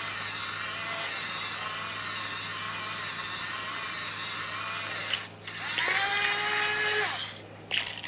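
Small battery-powered mini washing machine's motor whirring steadily as its drum turns a wet makeup sponge. A little after five seconds in it cuts out, starts again louder with a rising whine that settles to a steady pitch, and stops about a second and a half later, followed by a few clicks.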